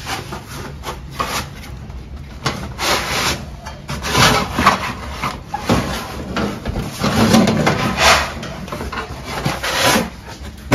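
Irregular scraping and rubbing strokes, rough and uneven, from hands-on installation work. A sharp loud knock comes at the very end.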